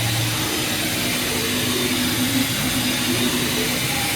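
DN Solutions SVM-4100 vertical machining center moving its axes at 25% rapid: a motor whine that holds, then rises and falls, over a steady machine hiss.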